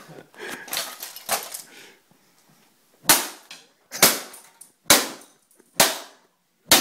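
A cane striking the broken plastic casing of a printer: a few lighter knocks, then five sharp cracking blows about a second apart.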